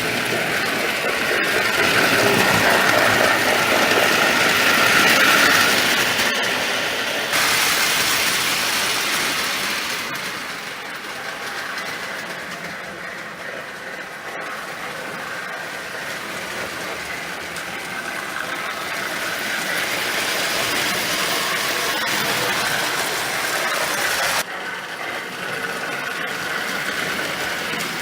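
Marx No. 1666 toy steam locomotive running on three-rail O-gauge track: a steady motor whir and wheels clattering over the rails, growing louder, fading about ten seconds in, then louder again as the train comes round. The sound changes suddenly twice.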